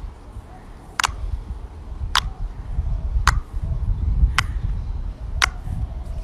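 Sharp single clicks from a fidget toy, evenly spaced about one a second, over a low rumble of handling noise.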